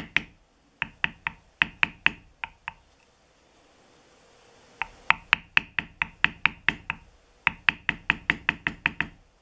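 Mallet striking a metal bevelling stamp into tooling leather on a stone slab: quick, short knocks about four a second, with a pause of about two seconds near the middle.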